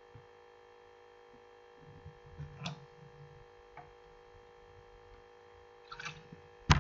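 Steady electrical hum with a few faint scattered ticks and small low rustles, and one sharp click just before the end.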